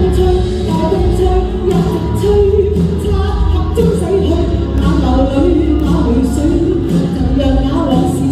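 A singer performing a Cantonese pop song, the sung melody over steady instrumental accompaniment with a low bass.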